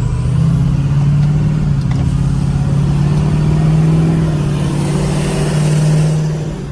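Vehicle under way: its engine runs with a steady hum that holds and then eases off near the end.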